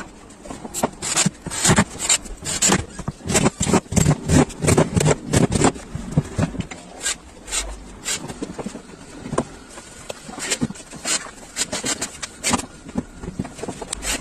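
A rapid, irregular series of sharp knocks and taps, several a second, densest in the first half and sparser later.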